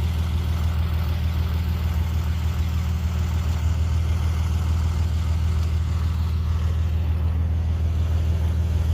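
A vehicle engine idling steadily: an even, low hum that does not change.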